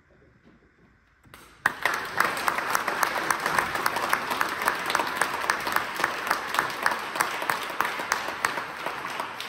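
Audience applauding after a short hush, the clapping starting suddenly about a second and a half in and carrying on steadily.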